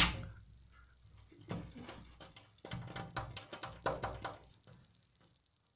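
Golden retriever licking a window pane: an irregular run of short, wet tongue smacks against the glass that stops near the end. A knock on the glass right at the start is the loudest sound.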